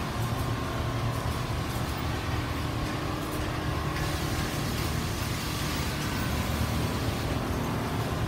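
Steady mechanical drone of many quilting machines running together on a factory floor, with a low hum underneath.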